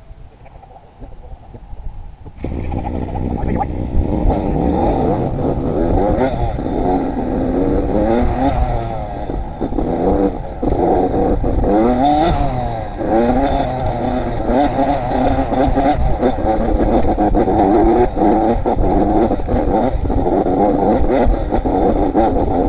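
Dirt bike engine revving and running hard under throttle, its pitch rising and falling with each twist of the throttle and gear change. It jumps sharply in loudness about two seconds in as the bike pulls away.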